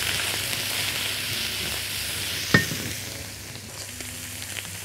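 Sliced onion, garlic and chili sizzling in hot oil in a wok while being stirred with a silicone spatula. The hiss eases a little after about three seconds, and there is a single sharp knock about two and a half seconds in.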